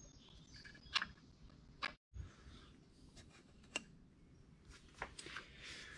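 A few faint, scattered sharp clicks and light metal taps as a VW Type 1 engine's finned cylinder barrel is handled and seated on its studs.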